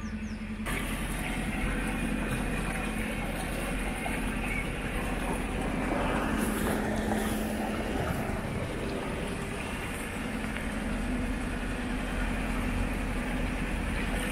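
Narrowboat engine running steadily under way, with water washing along the hull. It cuts in sharply just under a second in.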